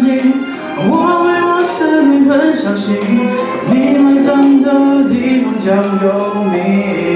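A man singing a Mandopop song into a handheld microphone over recorded backing music with a light percussion beat.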